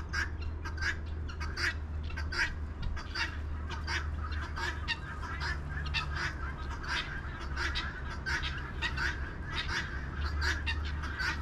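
A flock of domestic fowl calling: a rapid, overlapping stream of short, harsh calls, several a second, over a steady low hum.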